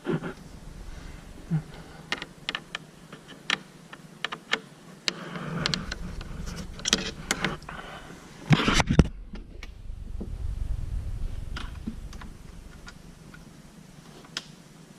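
Hands working on car interior parts: scattered clicks and knocks, with a louder clatter about nine seconds in.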